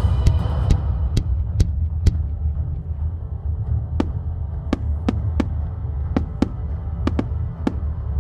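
A deep, throbbing bass drone from the show's music, with sharp firework reports cracking irregularly over it, about a dozen of them, bunched early on and again in the second half.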